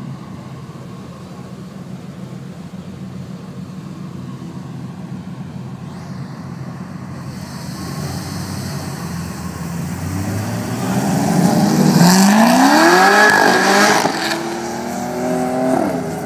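A Chevrolet Corvette and a Porsche 911 Turbo idle on the start line, then go to full throttle. About ten seconds in, the engine note climbs steeply and loudly, dips briefly at an upshift, and climbs again as the cars pull away.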